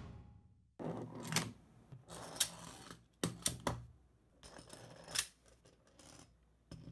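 3D-printed plastic magnetic construction tiles being fitted together on a desk: about six sharp, irregular clicks as the tile edges snap together, with short rustles of plastic sliding between them.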